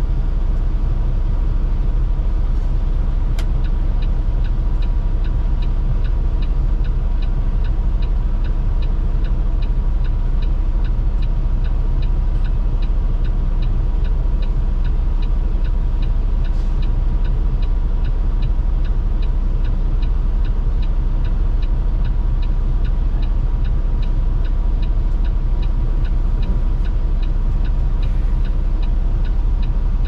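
Semi-truck diesel engine idling, a steady low rumble heard from inside the cab. A single click about three seconds in, then a regular light ticking that keeps on evenly to the end.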